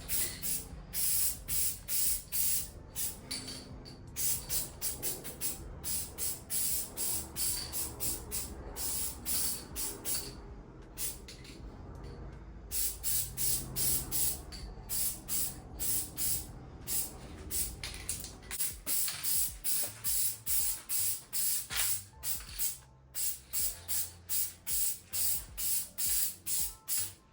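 Aerosol can of primer spraying in short hissing bursts, about two a second, with a couple of brief pauses.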